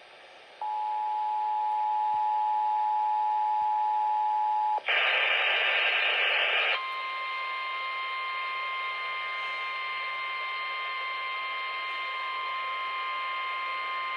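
Emergency Alert System two-tone attention signal (two steady tones just under 1 kHz) sounds for about four seconds. It breaks into about two seconds of loud static-like noise, then gives way to NOAA Weather Radio's single steady warning alarm tone near 1 kHz, held for the rest, signalling a severe weather warning about to be read.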